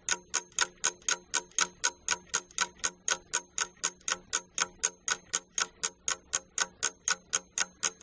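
Steady ticking of a clock sound effect, about four ticks a second, marking the thinking time for a quiz question.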